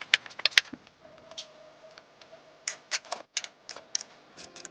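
Quick, irregular short strokes and clicks of bathroom cleaning, like a scrubbing brush worked against a hard surface, with a faint steady hum for a moment after the first second.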